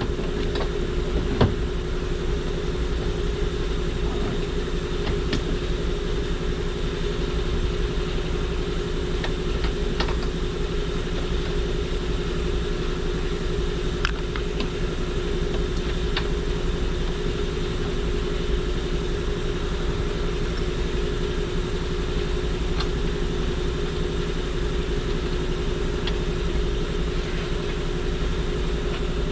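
Steady mechanical hum with a constant tone, like an idling engine or running fan, with a few faint clicks and taps scattered through it.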